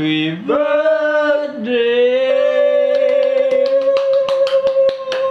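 A voice singing drawn-out notes, the last one held for about four seconds. Hand claps join in a steady beat about halfway through.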